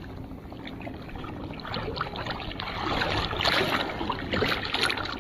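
Shallow seawater sloshing and trickling, with small splashes, getting louder about halfway through.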